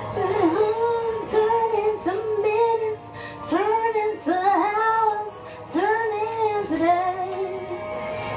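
Background music: a song with a singing voice in drawn-out melodic phrases.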